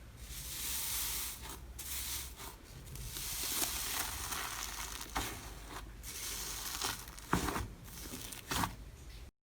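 Slime being squeezed and worked by hand, giving a continuous crackling, crinkly hiss broken by sharp pops, the loudest a little past the middle.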